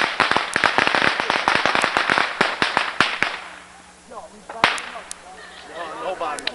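A string of firecrackers going off in a rapid, dense run of sharp cracks that thins out and stops about three seconds in. One more single bang follows a second or so later.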